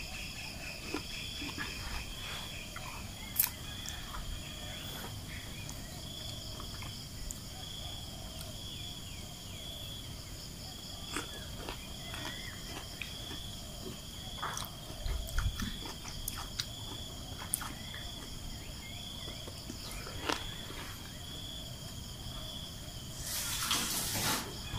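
Insects chirping steadily in a regular pulse, about one and a half beats a second, with a few faint clicks and a short burst of noise near the end.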